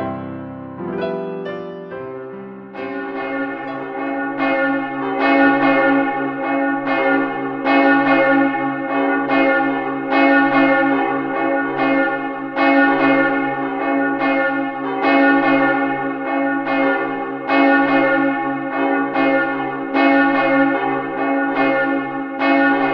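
Church bells struck over and over in a steady, even rhythm, ringing the call to worship. The last soft piano notes fade out in the first two or three seconds.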